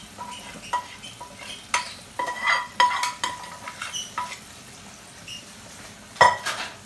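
Steel bowl clinking and scraping against the rim of a steel frying pan as cooked chicken and its water are tipped in, several ringing metal knocks over a low frying sizzle. One louder clank about six seconds in.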